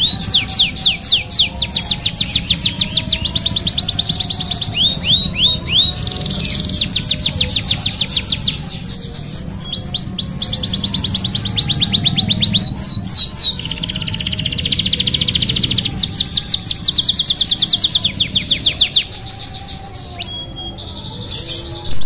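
Domestic canary singing a long rolling song: fast trills of rapidly repeated sweeping notes, one phrase running into the next with only brief pauses. Near the end comes a short held whistle.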